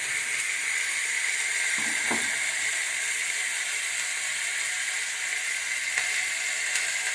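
Chopped vegetables (carrot, cauliflower and cabbage) sizzling steadily in hot oil in a pan as they fry.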